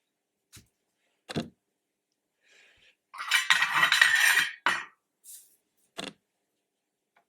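Small metal objects being handled on a bench: a few separate clicks and knocks, then about a second and a half of clinking and rattling around the middle, then a couple more knocks.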